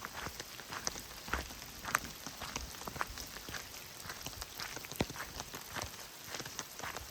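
Rain falling, with individual drops ticking sharply and irregularly close to the microphone over a steady hiss.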